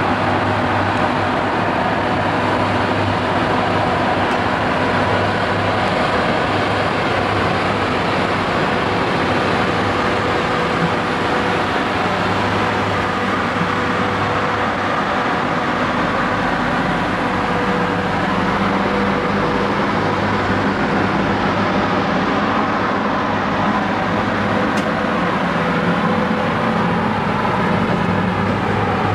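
KiwiRail freight train hauled by EF electric locomotives passing close by, a steady rumble with a few steady tones running through it.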